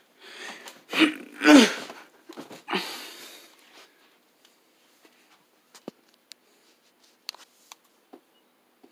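Short vocal sounds from a person for about the first four seconds, then a handful of faint, scattered clicks.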